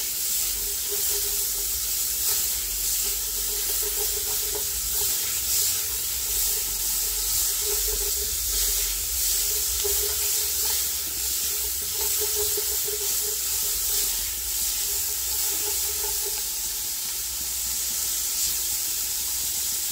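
Chopped onion and grated garlic sizzling steadily in hot oil in an aluminium pressure cooker, stirred now and then with a silicone spatula. The onion's own moisture is sputtering in the oil.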